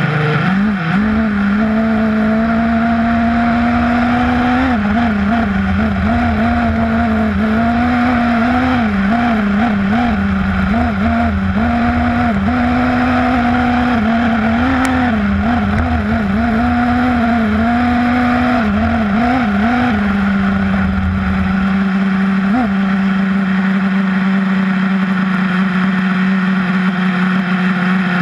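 XTM Rail RC buggy's motor running, its pitch wavering up and down with the throttle, while the tyres rumble over gravel. In the last several seconds the rumble stops and only a steady hum remains.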